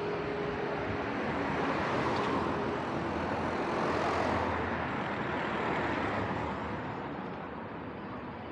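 Road traffic: cars passing on the road close alongside, the tyre and engine noise swelling to a peak about four seconds in and fading away over the last couple of seconds.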